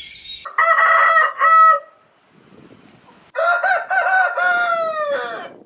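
Rooster crowing twice, the second crow longer and dropping in pitch at its end.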